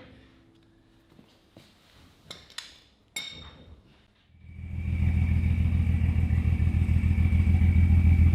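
A few light clicks, then about four seconds in a Ford 4.0-litre SOHC inline-six starts cranking over on its starter motor in a steady pulsing run with a thin whine above it. It turns slowly, which the crew puts down to a cheap Chinese-made part.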